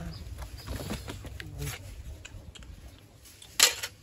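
Handling noise from a phone and its cardboard box being picked up and turned over in the hands: light rustling and small taps, with one short, loud rustle or scrape near the end.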